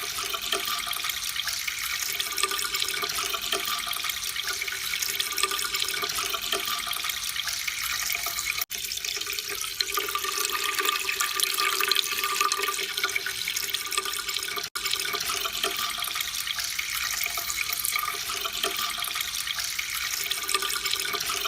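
Steady stream of running, splashing water, a water-ambience sound effect used as a peeing sound. It cuts out for an instant twice along the way.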